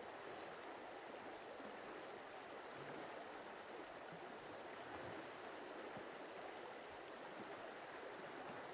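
Faint, steady outdoor ambience: an even rushing hiss with no distinct events.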